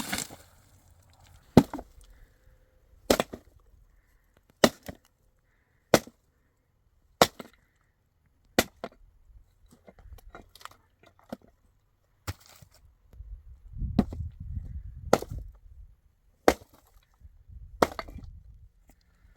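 A hand tool striking over and over, in sharp chopping blows about one every second and a half, with short stretches of rustling and shuffling between blows near the start and about two-thirds of the way through.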